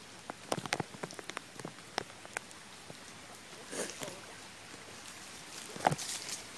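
Scattered water drops pattering irregularly, sharp ticks over a light steady hiss, with a brief rustle about four seconds in and a louder knock just before the end.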